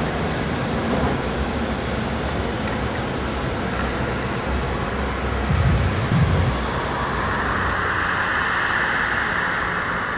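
Steady vehicle noise: a low rumble under an even hiss, the hiss growing brighter from about seven seconds in.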